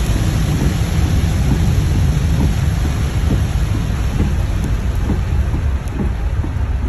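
Heavy rain beating on a car's roof and windshield, heard from inside the cabin as a dense, steady hiss over a low rumble.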